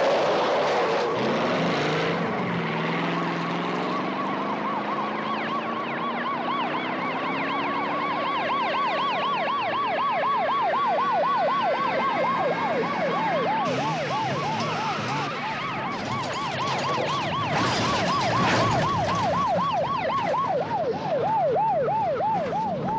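Police car sirens sounding a fast up-and-down warble, more than one siren at once, over the running engines of the chasing police cruisers. In the first couple of seconds a car engine and tyres are loudest, before the sirens take over.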